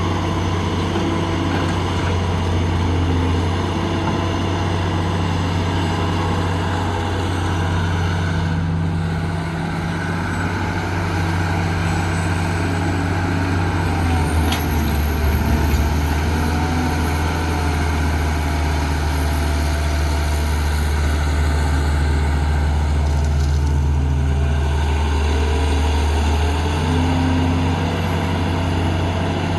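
Heavy diesel engine of earthmoving machinery running steadily, its low note stepping up and down a few times.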